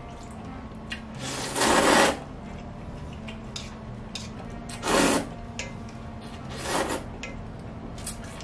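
Cold naengmyeon noodles being slurped: three noisy slurps, the longest and loudest about a second in, then two shorter ones around the middle and later. A steady low hum runs underneath.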